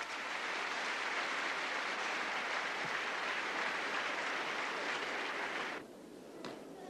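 Arena crowd applauding after a gymnast's vault, a dense steady clapping that cuts off abruptly about six seconds in, leaving quieter hall noise.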